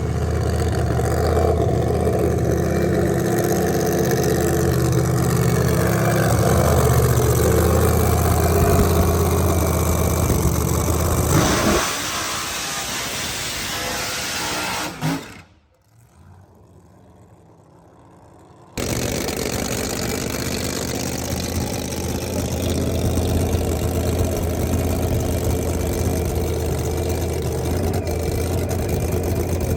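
Drag race car engine running steadily, with a sharp change about twelve seconds in. A short quieter gap follows, then the engine sound returns abruptly and runs steadily again.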